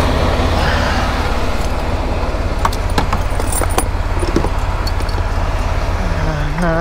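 Semi-truck's diesel engine idling steadily, with sharp metallic clinks and jingling from the ratchet straps' hooks and buckles as they are bundled and stowed. A steady pitched tone starts near the end.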